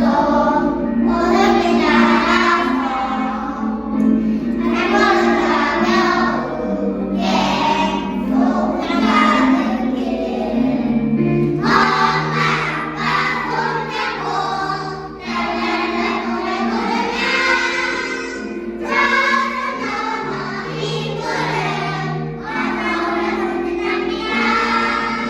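A choir of six-year-old children singing a song in phrases over a sustained instrumental accompaniment.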